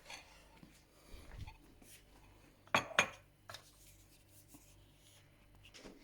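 Two sharp clinks about a quarter second apart, near the middle, from hand-feeding utensils knocking against the food dish, amid quieter handling sounds.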